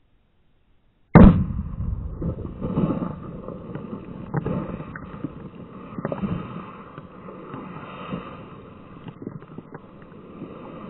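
A single loud gunshot about a second in, heard from beside the target, then a long crackling hiss that slowly fades as the hit plastic soda bottle sprays out its fizzing contents and debris patters down.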